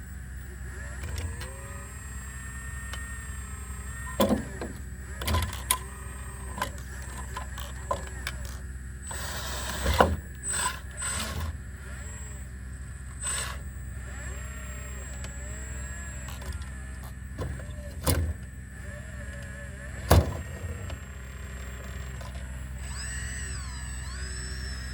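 Sumitomo SH120A3 excavator's diesel engine running, with a hydraulic whine that rises and falls as the machine works. Several sharp metal clanks, the loudest about ten and twenty seconds in.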